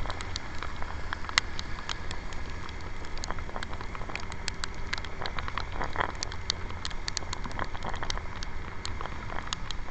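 Raindrops striking the handlebar-mounted camera and scooter in irregular sharp ticks, over a steady low rumble of wind and the moving scooter.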